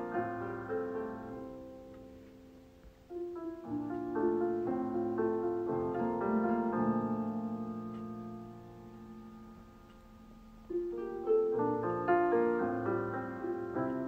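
Gentle piano music, its phrases dying away about three seconds in and again about ten seconds in, each time followed by a fresh phrase.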